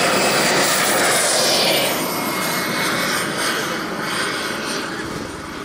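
Radio-controlled model propeller plane taking off at full power: a steady engine and propeller drone with a high whine that dips in pitch as it passes, then fades as it climbs away.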